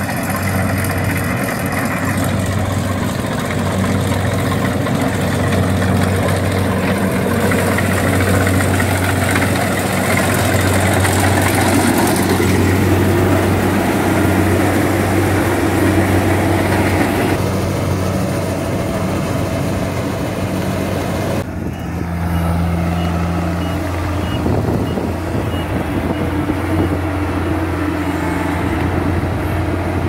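Kubota crawler combine harvester running steadily under load while cutting ripe rice: a constant engine hum with the noise of the cutting header and threshing machinery over it.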